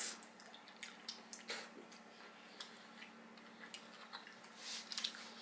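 Quiet eating sounds: soft chewing and squishing of a boiled dumpling, with scattered light clicks of chopsticks against bowls, over a faint steady hum.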